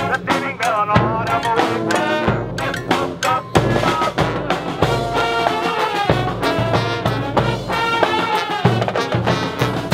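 Brass band music: horns playing a melody over a steady drum beat.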